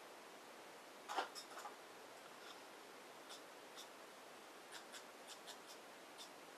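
Faint taps and scratches of paintbrushes and hands on watercolour paper, the loudest cluster about a second in and light scattered ticks after it, over a steady hiss.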